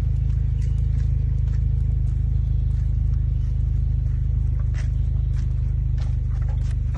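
A loud, steady low rumble that starts abruptly and runs without change, with a few faint clicks and scrapes over it.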